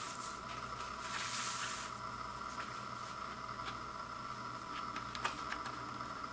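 Cardboard gatefold record sleeve being handled and opened: a soft papery swish about a second in as it is picked up, then light taps and clicks of card, one sharper click near the end. A steady background hum runs underneath.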